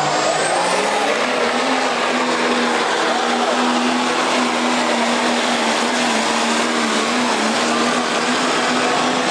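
Diesel Dodge Ram pickup's engine running at full throttle under heavy load as it drags a pulling sled. Its pitch climbs over about the first second and a half, then holds a steady high drone, with a thin high whine rising alongside it at the start.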